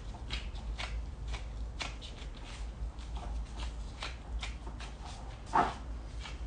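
Gloved hands squeezing raw minced beef onto a metal skewer: irregular soft crinkles and squishes of disposable plastic gloves working the wet mince, one louder near the end, over a low steady hum.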